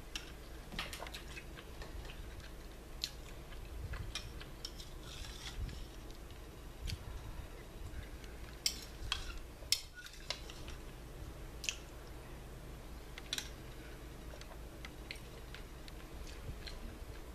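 Close-up eating sounds of tortilla soup: chewing and small mouth clicks, with a spoon clinking against the bowl in scattered, irregular ticks, a few sharper clinks near the middle.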